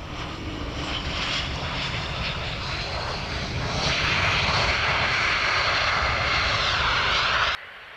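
Bombardier CRJ regional jet's twin turbofan engines roaring on its landing roll. The roar grows louder about four seconds in, a falling whine is heard near the end, and the sound cuts off suddenly just before the end.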